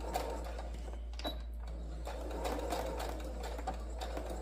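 Electric domestic sewing machine stitching a seam through two layers of cotton quilting fabric, running in spurts with a few sharp clicks.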